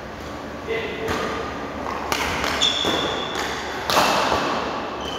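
Badminton rally: rackets striking the shuttlecock several times with sharp cracks, the loudest about four seconds in, while players' shoes give short high squeaks on the court floor.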